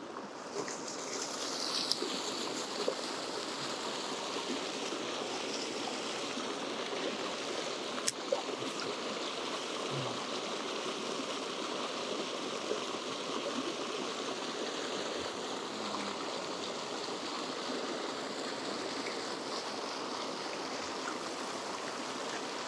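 Steady rush of water pouring from an outlet into a canal, churning at the base of the concrete wall.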